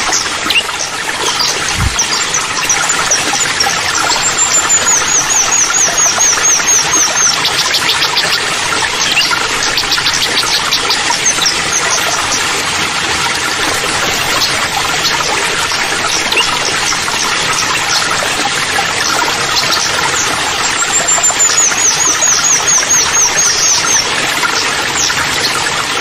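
Waterfall pouring steadily into a rock pool. Twice a small bird sings a high trill of quick repeated notes, each opening with a downward slide, and about two seconds in there is a single low thump.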